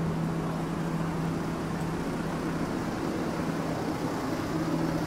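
Urban street ambience: a steady wash of traffic noise with a steady low hum that drops out for about a second midway.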